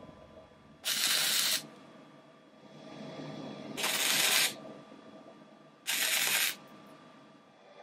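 MIG welder arc crackling in three short bursts of welding on steel pipe, each under a second long, with a pause of about two seconds between them.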